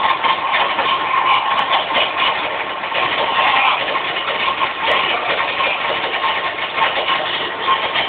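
AEG vacuum cleaner running: a loud, steady rush of air with a constant whine at one pitch.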